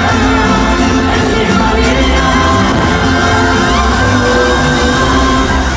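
Loud music with singing, with some shouts and whoops from a crowd.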